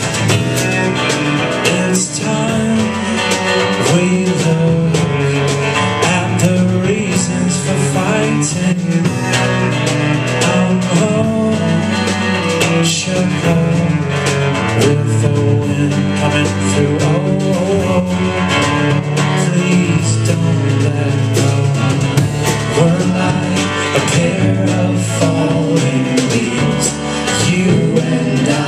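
Live band music: a strummed acoustic guitar over electric bass guitar and cello, steady and full throughout.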